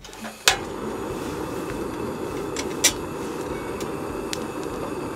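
Iwatani Tough Maru Jr cassette gas stove lit with a click about half a second in, then its burner runs steadily under a metal pot. A sharp metallic click comes near the middle.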